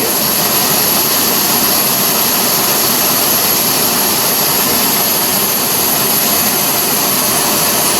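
Propane camp-stove burner running turned up high, a steady, even hiss of burning gas.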